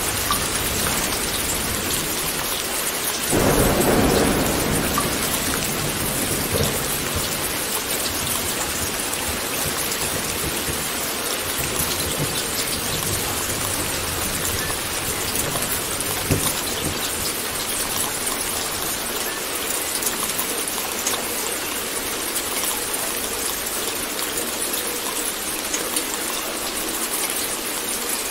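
Steady rain falling, with a rumble of thunder about three seconds in that fades away over a few seconds.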